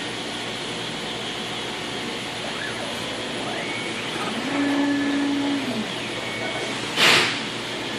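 ShopBot PRT alpha CNC router running with a steady rushing hiss. A whine rises about halfway through, holds and then falls away, as on a machine move, and a short loud burst of noise comes near the end.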